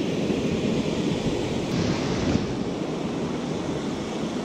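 Ocean surf washing and breaking in a steady rush, with wind on the microphone.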